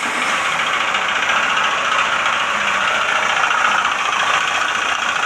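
Honda Bros 150's single-cylinder four-stroke engine running at idle with a steady rapid knocking, which the owner takes for a worn connecting rod ("biela roncando"), or perhaps a growling bearing.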